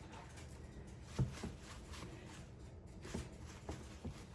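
Quiet room with a few faint, short taps and clicks.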